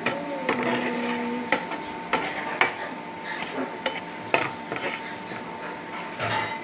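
Metal slotted spoon stirring and scooping fried onions in ghee in a steel pan, clinking and scraping against the pan in irregular knocks, about a dozen of them.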